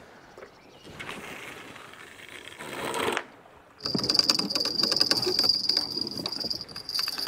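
Fishing reel's bait clicker ratcheting fast, a high ringing whir of dense clicks, as a fish runs off with line; it starts about halfway through and is the loudest sound. Before it, a short rush of noise rises and cuts off suddenly.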